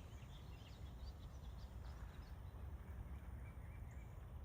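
Quiet woodland ambience: a steady low rumble of wind with a few faint, short chirps from distant birds.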